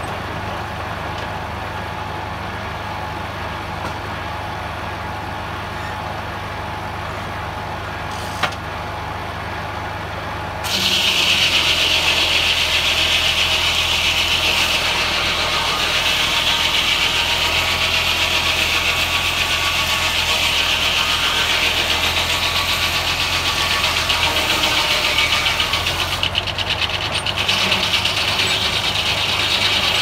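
Tractor-driven Foley Belsaw circular sawmill: the engine and spinning blade run steadily, with a single click a little over eight seconds in. About ten seconds in the blade bites into the pine log and saws through it with a loud, high, rasping hiss over the steady engine hum.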